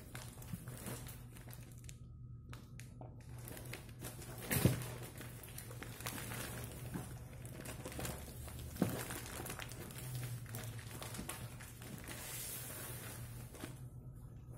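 A large parcel wrapped in plastic and packing tape being handled and turned over: the plastic wrapping crinkles and rustles, with two knocks as it is set down, the louder one about four and a half seconds in and another near nine seconds. A steady low hum runs underneath.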